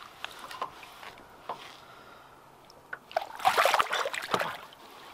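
A hooked largemouth bass splashing at the surface right against a boat's hull as a hand reaches down to lip it: light water lapping and small splashes, then a loud burst of splashing about three seconds in that lasts about a second.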